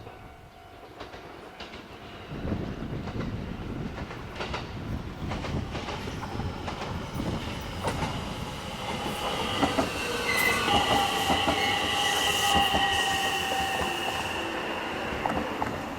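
A train passing over a level crossing: a rumble that swells from about two seconds in, with the clack of wheels over rail joints. A steady high-pitched tone joins in from about ten seconds in, as the train is loudest.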